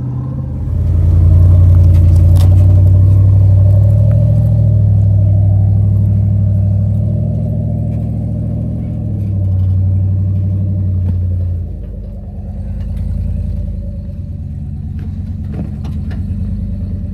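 Off-road vehicle engine pulling hard under load, with a steady low drone. It swells about a second in and eases off to a quieter run about two-thirds of the way through, with a few sharp knocks and clatters.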